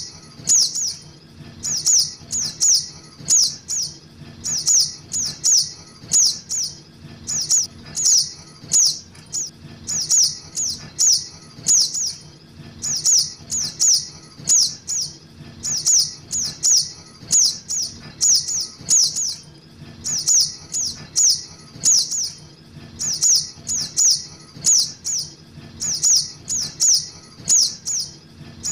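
Juvenile sogok ontong (crimson sunbird) begging calls used as a bird lure: short, high, downslurred chirps in quick clusters of three or four, repeating about once a second without a break.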